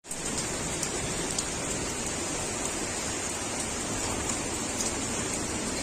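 Hailstorm: a steady downpour hiss with scattered sharp ticks of hailstones striking.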